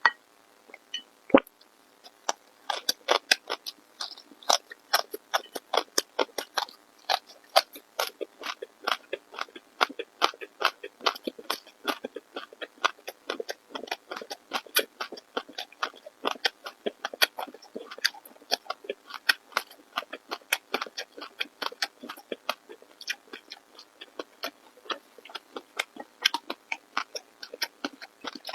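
A person chewing food close to the microphone: a long run of short, sharp mouth clicks, about three or four a second, starting about two seconds in.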